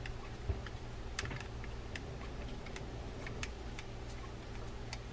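Faint, irregular small clicks and ticks of a screwdriver driving a small case screw into the frame of an Okuma Komodo SS baitcasting reel, metal tip on metal screw.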